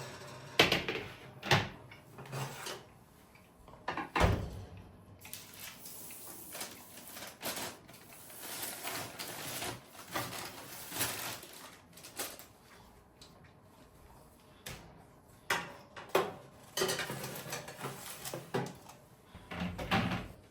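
Household handling sounds: irregular knocks, clicks and rubbing of objects being moved and set down, with stretches of rustling in between.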